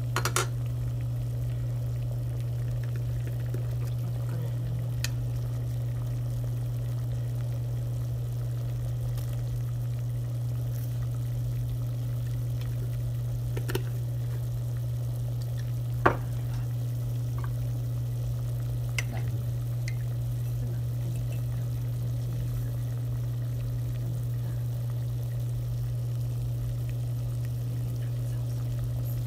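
Water at a rolling boil in a large pot, bubbling steadily over a constant low hum, with a few faint clicks and one sharper click just past the middle.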